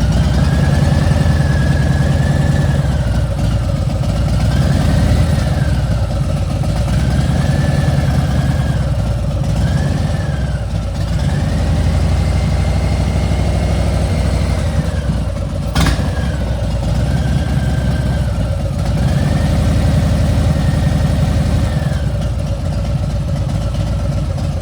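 Harley-Davidson Milwaukee-Eight V-twin engine running and blipped repeatedly, with a high whine over the rumble that rises and falls with each rev; the owner finds the whine excessive. A single sharp click about two-thirds of the way through.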